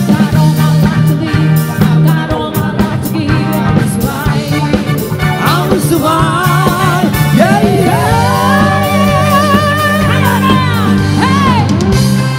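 Live pop band playing with a female lead singer, who holds long notes with vibrato in the middle, over a steady beat of drums and bass with electric guitar and keyboard.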